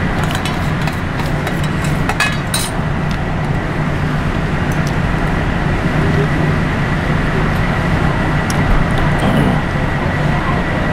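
Steady low background rumble, with a few light clinks of steel spoons against steel plates in the first three seconds.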